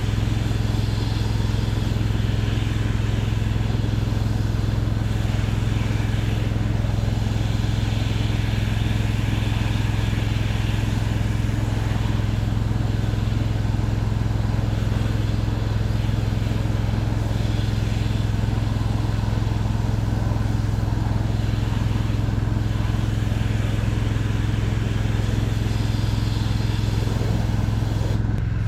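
Gas engine of a pressure washer running steadily at one constant pitch, with a hiss above it that swells and fades.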